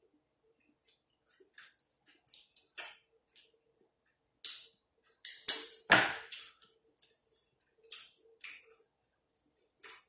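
Mouth sounds of eating pork neck bones by hand: scattered wet smacks, sucks and clicks of lips and tongue. The loudest, fullest one comes about six seconds in.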